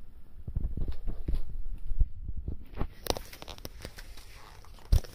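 A person's footsteps and knocks and rubbing from handling the phone while walking, with irregular low thuds at first, then a run of sharp clicks and a single hard thump near the end.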